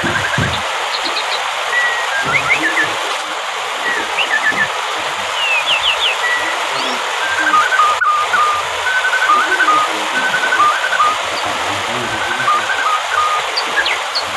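Waterfall making a steady rush of falling water, with birds chirping over it: scattered short chirps throughout and a repeated trilling phrase in the middle.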